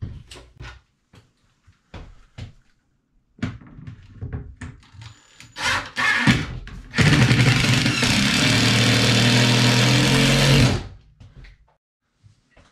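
Cordless drill running steadily for about four seconds, boring a mounting hole through the wooden barn-door track board, then stopping abruptly. Before it come a few light knocks of the drill being set against the board.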